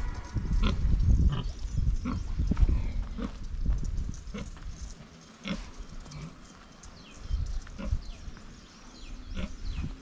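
Farm livestock sounds: a busy run of low thuds and knocks for the first few seconds, then quieter, with a few short high falling chirps.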